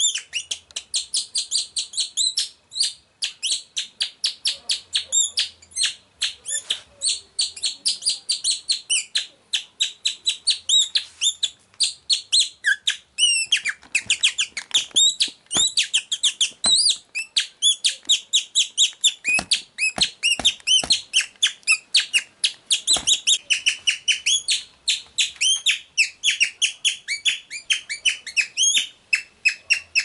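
Rapid, high-pitched bird-like chirping and twittering, several chirps a second with quick hooked pitch sweeps, going on without a break. A few brief clicks fall among the chirps in the middle.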